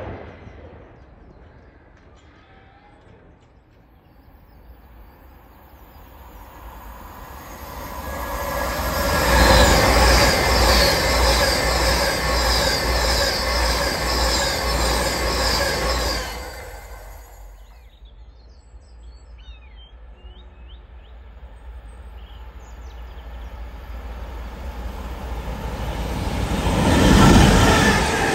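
An express passenger train passes through the station at speed. It builds to a steady rush of wheels on rail with a quick regular clatter, then drops away abruptly as the last carriage goes by. Near the end a container freight train approaches, growing louder.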